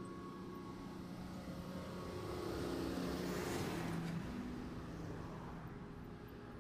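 A car passing close by: its noise swells to a peak about halfway through, drops in pitch as it goes past, then fades.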